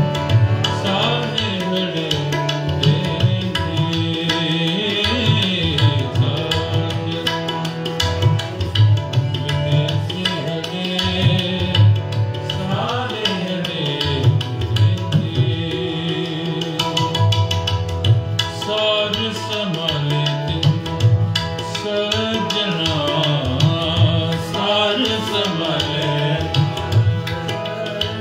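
Sikh kirtan: two harmoniums holding the melody and drones, tabla drums played throughout, and a man and a girl singing.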